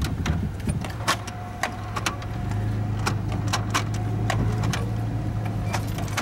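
Cabin noise of a moving van: a steady low engine and road hum that grows a little louder about halfway through, with frequent sharp clicks and knocks scattered through it.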